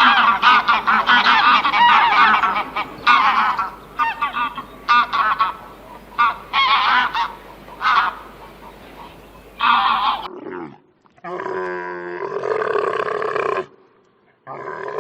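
A flock of geese honking, many overlapping calls for about ten seconds. After an abrupt cut, a different, larger animal gives two long, deep calls.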